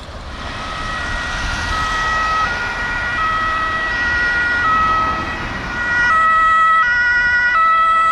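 Two-tone emergency vehicle siren (German Martinshorn) on an approaching police van, alternating between a low and a high note about every three-quarters of a second. It grows clearly louder about six seconds in as the van draws near.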